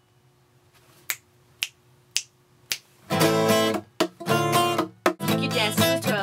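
Four sharp clicks about half a second apart count in the tempo, then strummed chords on acoustic guitar and ukulele begin about three seconds in.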